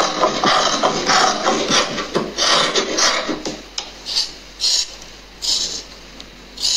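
Scissors cutting through fabric on a wooden table: snips close together at first, then a handful of separate snips with short gaps in the second half.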